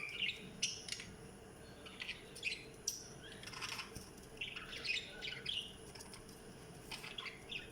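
Pet budgerigars chirping and squawking in short, irregular calls.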